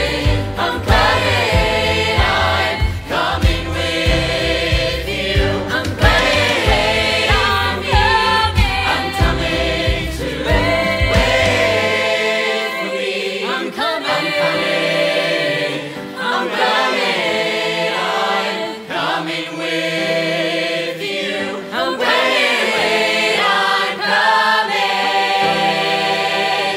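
Music: a mixed ensemble of voices singing together in harmony over a deep pulsing bass. The bass drops out about halfway through, leaving the voices.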